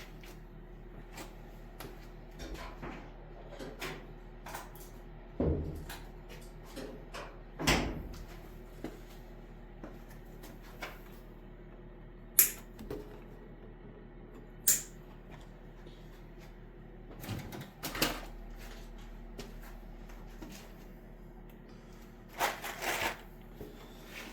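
Tools and small parts being handled during hand work on car wiring: scattered clicks, taps and knocks at irregular intervals, with a short burst of rustling near the end, over a faint steady hum.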